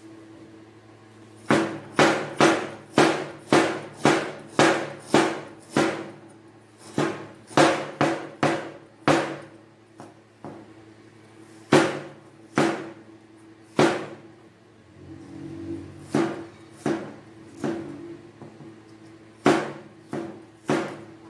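A kitchen knife chopping on a cutting board: sharp knocks about two a second, coming in runs with short pauses between, over a steady low hum.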